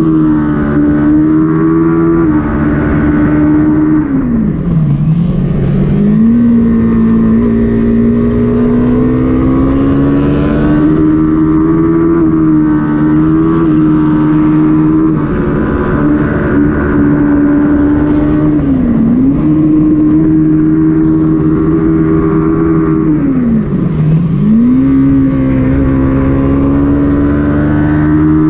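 Kawasaki Ninja 400's parallel-twin engine heard onboard at race pace, held at high revs. The pitch drops sharply three times and climbs back up each time as the rider works the throttle and gears through the corners, with wind noise throughout.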